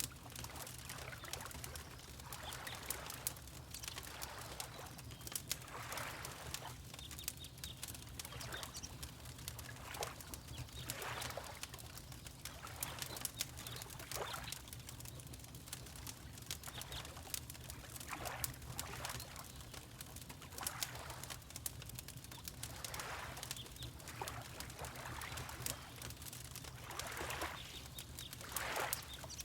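Layered ambience of a wood fire crackling with many small pops, over a steady low rumble, while water laps in soft swells every few seconds.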